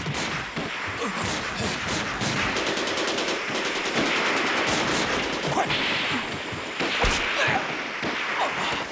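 Sustained rapid gunfire: machine-gun and rifle shots running together in a dense barrage.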